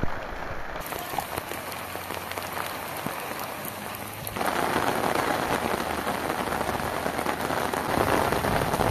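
Heavy rain falling, a steady hiss that gets louder about four seconds in.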